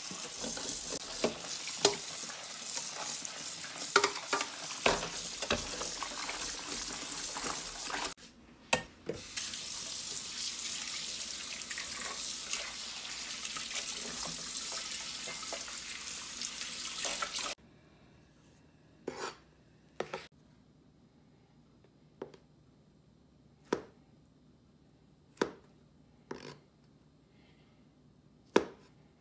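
Kitchen tap running into a stainless steel bowl in a steel sink while mushrooms and red pepper are rinsed by hand, with splashing and clatters; the water stops briefly about eight seconds in. About two-thirds of the way through the water cuts off, and a kitchen knife chops on a wooden cutting board in about seven single strikes, one to two seconds apart.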